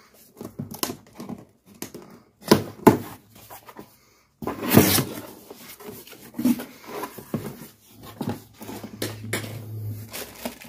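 Unboxing handling sounds: a cardboard carton's flaps and plastic-bagged parts being moved, rustled and knocked in irregular taps and scrapes. The sound cuts out for a moment about four seconds in.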